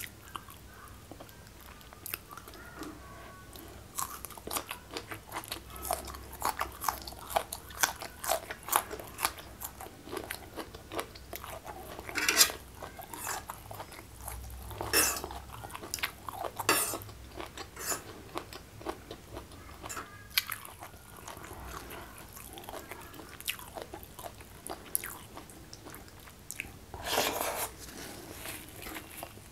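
Close-miked mouth sounds of a person chewing and crunching food, steady wet chewing with several louder crunchy bites, the strongest about 12, 15, 17 and 27 seconds in.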